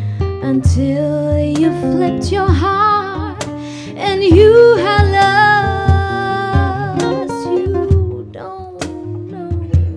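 Jazz ballad played live: a woman sings long, wavering held notes over acoustic guitar, with light percussion hits.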